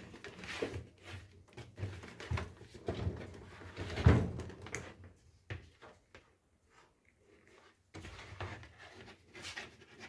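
Knocks and clicks of handling at a Midea microwave oven as a container of water is set inside, with one louder thump about four seconds in.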